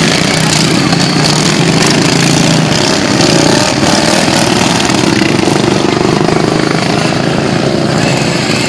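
Racing lawn mower engines running loud and hard, their engine note wavering up and down as they run the track.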